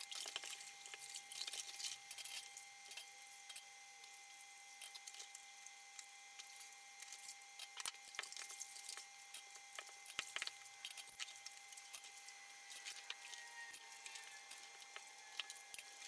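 Faint washing-up at a kitchen sink: scattered soft clinks and knocks of dishes and utensils handled in water.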